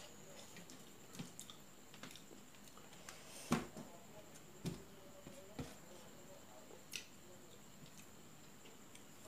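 Faint eating sounds of a meal taken by hand: fingers scraping food off a steel plate and chewing, heard as scattered soft clicks and smacks, the loudest about three and a half and five seconds in.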